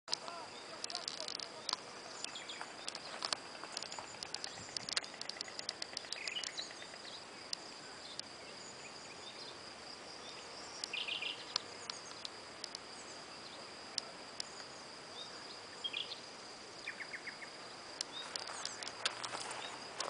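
Wild birds chirping and calling in short trills and quick clicky bursts over a steady high-pitched hum. Rustling rises near the end.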